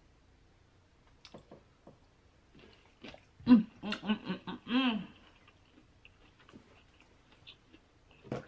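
A woman's voice makes a short run of four or five quick wordless sounds about three and a half seconds in, the last one rising and falling in pitch. Faint soft clicks from eating come before and after.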